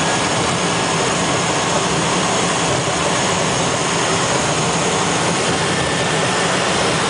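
Cabin noise of a Cessna 208B Caravan's Pratt & Whitney PT6A turboprop as the plane taxis: a loud, steady drone with a faint high whine.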